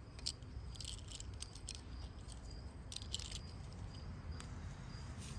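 Small metal pocket tools clicking and rattling in the hand in a few short bursts, over crickets chirping steadily at a high pitch.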